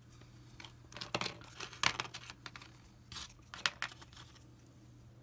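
Clear plastic parts bag crinkling and rustling in irregular bursts as hands handle it and pull resin kit parts from it.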